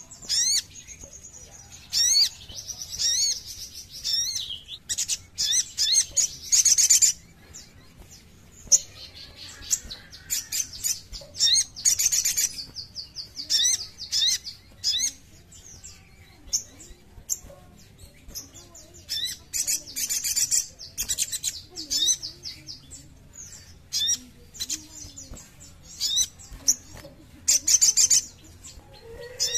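Sogon (sogok ontong sunbird) singing: rapid high chirps and trills in bursts of a second or two, with short gaps between them.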